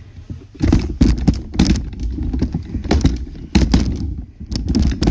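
Irregular knocks, taps and thumps over a low rumble: handling noise from things being moved about and bumped near the microphone.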